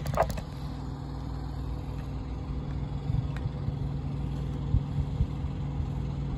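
A vehicle engine running with a steady low hum, with a few short low thumps about three-quarters of the way through.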